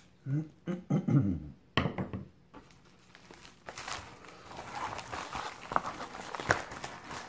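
Yellow Scotch plastic bubble mailer crinkling and rustling as it is handled and lifted, from a few seconds in, with small clicks. A man's voice mumbles briefly about a second in.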